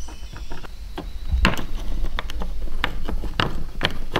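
Irregular clicks and light knocks of small hardware being handled and fitted: a nut and tie-down eyelet going onto a kayak track adapter, the nut added as a spacer.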